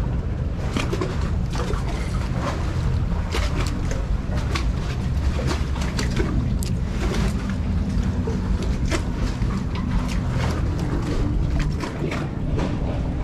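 Wind buffeting the microphone in a steady low rumble, with irregular splashes and clicks as choppy sea water laps against a concrete pier.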